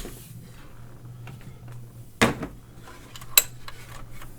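Metal payphone parts being handled during disassembly: small clicks, a clunk about two seconds in and a sharp click about a second later, over a low steady hum.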